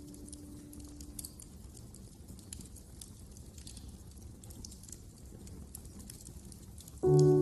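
Wood fire crackling, with scattered small pops over a low rumble. A held piano note dies away about a second in, and piano music comes back in loudly near the end.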